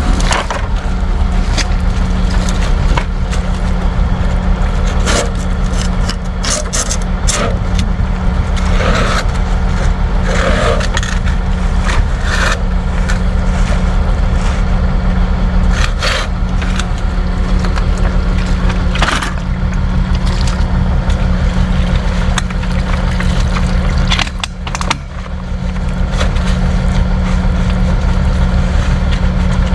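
Diesel engine of a heavy tile-drainage machine running steadily under load, with scattered scraping and cracking sounds over it. The engine dips briefly near the end.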